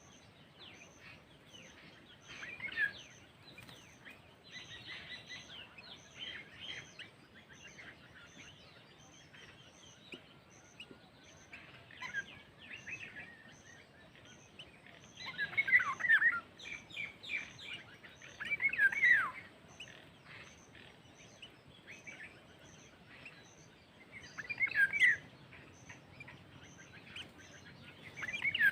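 Birds calling in scattered bursts of quick chirps and short falling notes, with the loudest phrases about halfway through, again a little later, and at the very end, over steady outdoor background noise. A faint, regular high ticking, about two a second, runs underneath.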